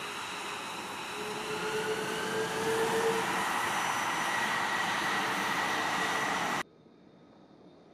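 Lockheed Martin F-22 Raptor's twin Pratt & Whitney F119 turbofans running at taxi: a steady jet hiss with a high whine that rises in pitch about a second and a half in and grows louder as the jet rolls past. Near the end the sound cuts off abruptly to a much fainter hiss.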